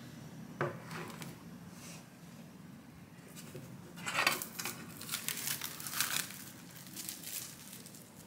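Plastic cling film crinkling and crackling as it is peeled off a metal baking tray, in a run of crackles from about three seconds in, loudest around four and six seconds. Just before, a single sharp knock as the metal tray is set down on the wooden table.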